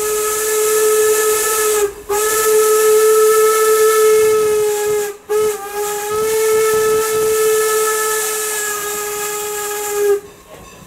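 Steam whistle of Norfolk & Western 4-8-0 #475, close by, blown in long steady blasts: the tail of one long blast, a second long, a very short toot, then a last long one that cuts off near the end. The long-long-short-long pattern is the standard signal for a grade crossing.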